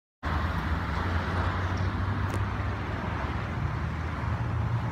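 A front-loading garbage truck's diesel engine runs at a steady low hum, under a constant hiss of road traffic noise. The sound starts suddenly just after the beginning.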